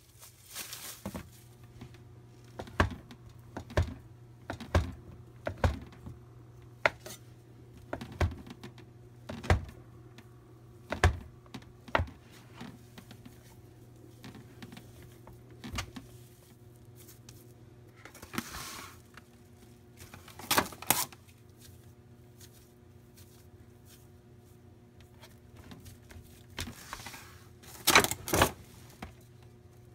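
Kitchen utensils and dishes knocking and clicking on a work surface at irregular intervals, over a steady low hum. There are a couple of brief rustling hisses about two-thirds of the way through and near the end.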